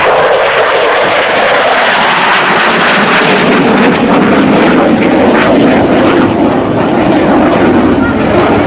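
Saab JAS 39 Gripen fighter's Volvo RM12 afterburning turbofan, loud jet noise as the aircraft flies past. A hissing rush gives way to a deeper rumble about three seconds in.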